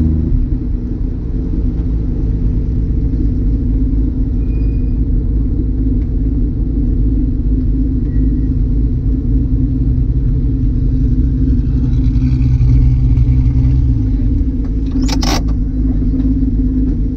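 1978 Datsun 280Z's straight-six engine and exhaust running steadily while driving, easing off about two-thirds of the way through, with one brief sharp noise about 15 seconds in.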